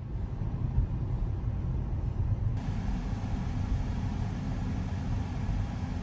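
Road and tyre noise inside a moving car's cabin: a steady low rumble, with a broader hiss joining abruptly about halfway through.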